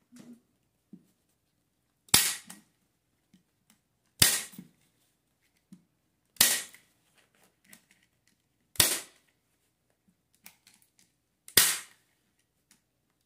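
Hand staple gun firing five times, each a sharp snap about two to three seconds apart, driving staples through upholstery fabric into a chair seat.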